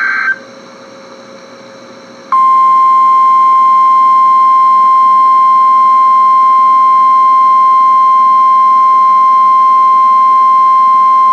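NOAA Weather Radio alert signals. A short burst of SAME digital data tones cuts off at the very start. About two seconds in, the 1050 Hz weather alert tone begins: one loud, steady, unbroken tone held for about nine seconds, the signal that turns on warning receivers ahead of a severe weather warning.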